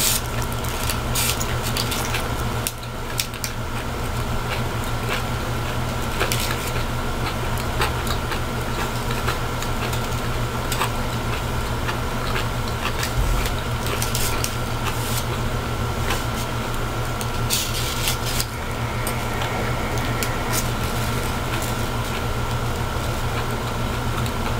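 Close-up eating sounds: chewing and squishing of zucchini noodles and flatbread, with short clicks of a plastic fork and crinkling of the aluminium foil wrapper, over a steady mechanical hum.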